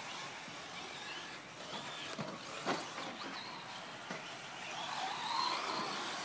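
Electric short-course RC truck motors whining faintly over the track ambience. About two-thirds of the way in, one whine rises in pitch and swells as a truck accelerates. A couple of light knocks come before it.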